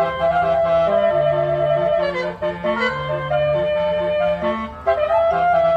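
Basuri 36-note telolet bus horn playing a pop melody, its reedy pitched notes stepping from one to the next over a lower line of held notes.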